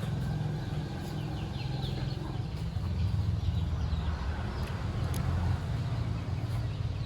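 Chickens clucking, with a few short high calls, over a steady low rumble.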